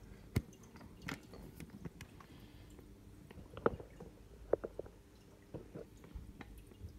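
Scattered small clicks and taps in a quiet room, a handful over several seconds, the sharpest about three and a half seconds in.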